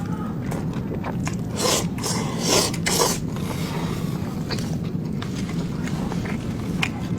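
A person eating pork fat close to the microphone: chewing with scattered small clicks, and three short, loud, noisy bursts between about one and a half and three seconds in.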